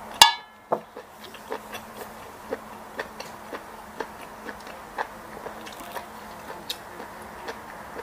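Eating sounds: one sharp clink with a brief metallic ring about a quarter second in, as a spoon knocks the metal serving tray, then small irregular clicks and ticks of spoon and chewing, roughly every half second, over a faint steady hum.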